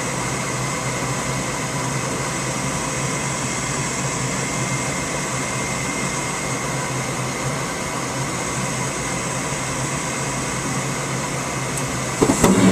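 Gas furnace's draft inducer motor running steadily, with a faint whine, while the hot surface igniter heats up during the start-up sequence. About twelve seconds in, the sound suddenly gets much louder, as the burners light.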